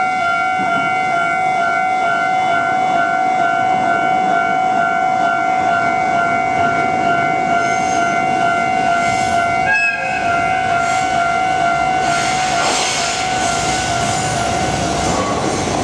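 Japanese level-crossing warning bell ringing continuously, with a brief horn note from the approaching DD56 diesel locomotive about ten seconds in. From about twelve seconds the freight train's noise builds as it reaches the crossing, and the bell stops near the end.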